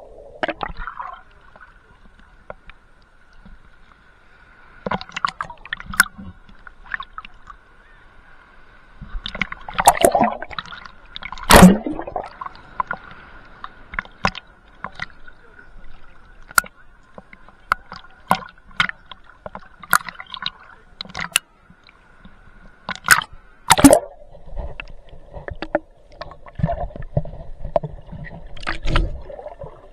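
Seawater sloshing and splashing against a waterproof action camera's housing as it bobs at the surface and goes under, with irregular sharp knocks and a few louder splashes.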